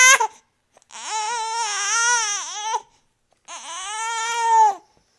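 Baby crying: the end of one cry, then two long wails, each rising and falling in pitch, with short breaths between them.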